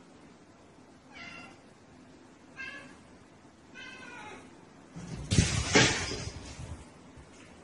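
A domestic cat meowing three times, short calls a little over a second apart. About five seconds in comes a louder burst of knocking and rustling noise.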